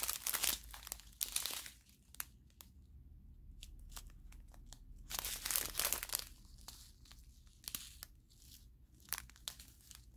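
Small resealable plastic bags of diamond-painting resin drills being handled and turned over, the thin plastic crinkling in irregular crackly bursts.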